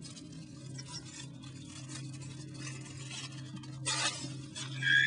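Rustling and handling noises as something is picked up and moved, with one sharp crack about four seconds in, over a steady low hum.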